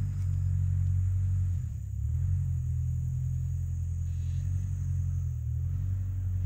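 A vehicle engine running with a steady low rumble, dipping briefly about two seconds in.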